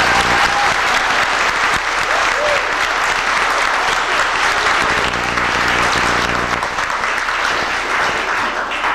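Audience applauding steadily, with low sustained musical notes sounding underneath.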